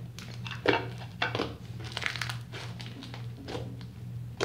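Green slime being squeezed and pressed by hand on a countertop, giving off irregular sticky crackling pops and clicks.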